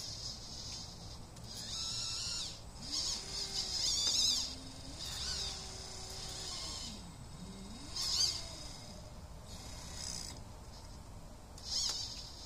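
Minn Kota 40 lb thrust trolling motor running with its propeller in the air under a remote ESC throttle, its pitch rising and falling several times as it speeds up and slows down. Short high-pitched chirping sounds come and go over it.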